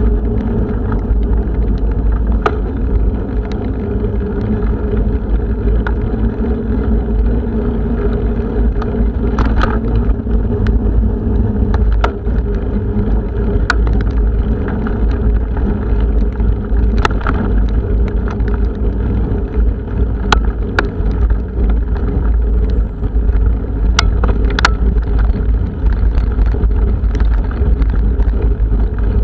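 Strong wind buffeting the microphone of a camera on a moving bicycle: a constant deep rumble, with scattered sharp ticks throughout.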